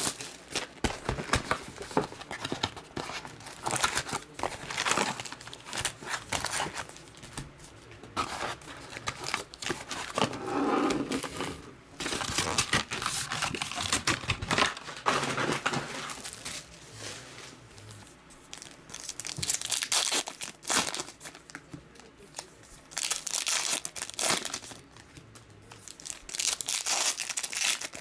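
Cellophane shrink-wrap torn off a trading-card box and crumpled, then foil card packs handled and ripped open, coming as repeated bursts of crinkling and tearing with short pauses between.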